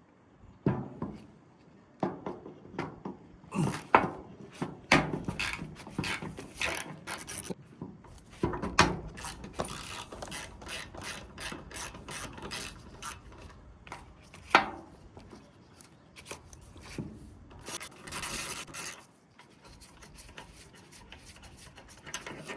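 Hand tools working on a BMW E46 starter motor as its two long 7 mm through-bolts are undone: irregular metallic clicks, knocks and scraping, with a few sharper knocks.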